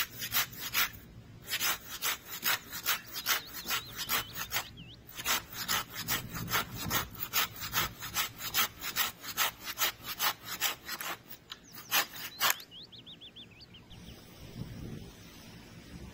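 Hand saw cutting through wood in quick, even back-and-forth strokes, about three a second, with two short breaks, stopping about twelve seconds in.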